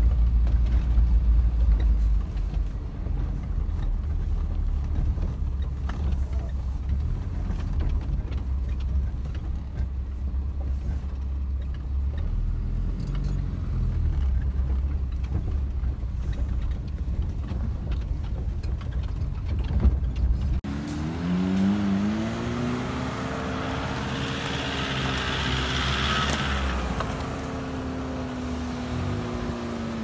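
A four-wheel-drive vehicle driving slowly over a rough, muddy track, a heavy low rumble of engine and ground noise. About two-thirds of the way through it changes abruptly to a Daihatsu Feroza's engine heard from outside, revving up and holding under load as it climbs through snow, then easing off near the end.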